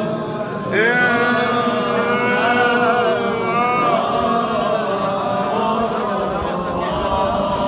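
A group of men's voices chanting together in long, drawn-out notes, with one strong voice coming in loudly about a second in.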